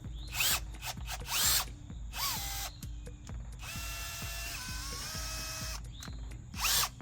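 Power drill-driver whirring in a few short bursts, then running steadily for about two seconds with a slight step in pitch midway, then one more short burst near the end.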